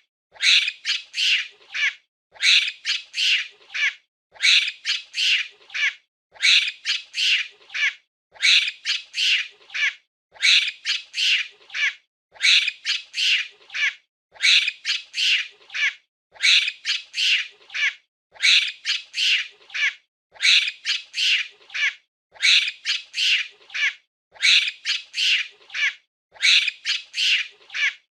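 Monkey chattering: a short burst of four or five rapid, shrill calls, repeated as an identical loop about every two seconds with silence between.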